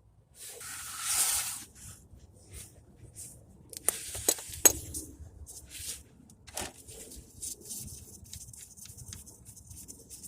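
Handling noises from working on the car: a rustling scrape about a second in, then a few sharp metallic clinks around four to five seconds in, with scattered light rubbing and ticks.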